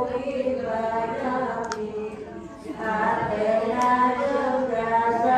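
A group of women chanting together in unison, with long held notes that bend in pitch. About halfway through there is a short pause for breath, then the chant comes back louder.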